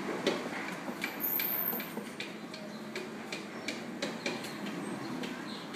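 Rubber glove rubbing a puppy's fur inside a plastic bucket, a steady scraping rustle with irregular light clicks.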